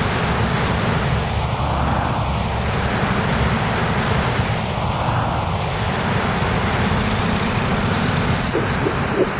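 Orion V city bus's diesel engine running as it approaches, with tyres hissing on the wet road and other traffic behind it. A couple of short squeaks come near the end.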